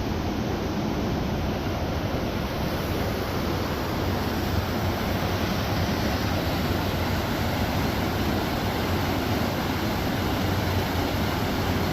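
Rushing water of a river and waterfalls in a rocky gorge: a steady, even roar of white water.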